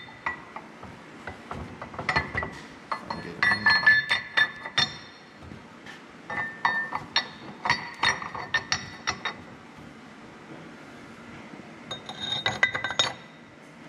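Steel press plates and tooling clinking and clanking against each other and the steel torque hub housing as they are set in place under a shop press. Sharp metallic clinks, each ringing briefly, come in several flurries, with a pause of a couple of seconds before a last flurry near the end.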